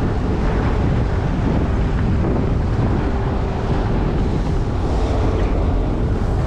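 Wind buffeting the microphone over choppy water rushing past a moving charter boat, with a faint steady hum from the boat's engine.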